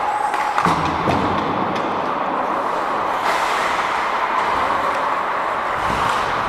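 Steady rink noise of ice hockey play, heard from a referee's helmet: skates scraping on the ice, with a few light knocks. A faint held tone fades out about half a second in.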